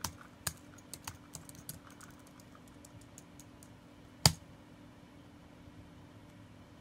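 Typing on a white MacBook's plastic keyboard: a run of quick key taps over the first three seconds, then one louder, sharp key click about four seconds in.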